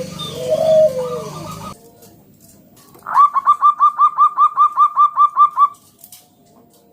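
Zebra dove (perkutut) calling: a fast run of about a dozen short, rising cooing notes, some five a second, starting about three seconds in and lasting over two seconds. Before it, a low steady hum with a few sliding higher tones cuts off abruptly just under two seconds in.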